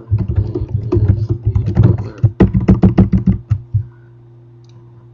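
Typing on a computer keyboard: quick runs of keystrokes with a few harder strokes a little past the middle, stopping about four seconds in. A low steady hum is left afterwards.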